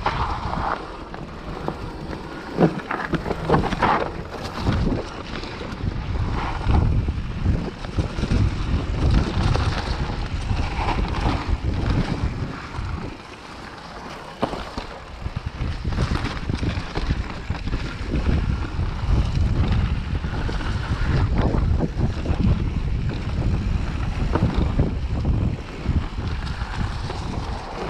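Mountain bike riding down a dirt forest trail: wind buffeting the microphone in a constant low rumble, with the tyres crunching over dry leaves and pine needles and the bike clattering over bumps. It goes briefly quieter about halfway through.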